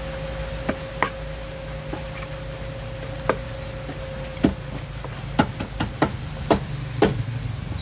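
Large kitchen knife chopping through raw fish flesh and striking a wooden log chopping block: about ten sharp knocks, sparse at first, then coming closer together from about halfway.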